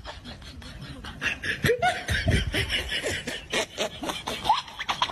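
A person laughing in short snickering bursts, louder from about a second in.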